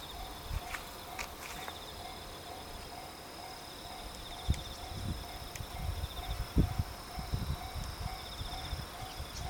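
A Japanese level-crossing warning bell ringing its repeated electronic clang, about two strikes a second, with insects trilling steadily in the background.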